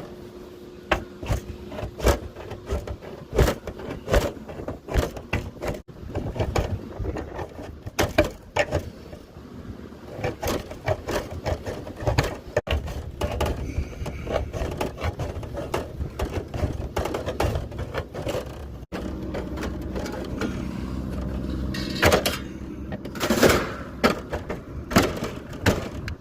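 Hand tin snips cutting through sheet metal: irregular sharp crunching snips and metallic clicks, one to a few a second. A low steady hum runs underneath in the last few seconds.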